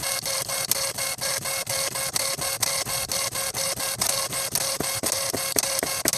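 Dot-matrix impact printer printing line by line on tractor-feed paper: a dense, rasping buzz from the print head, broken by short regular pauses, about four a second, as the paper advances a line.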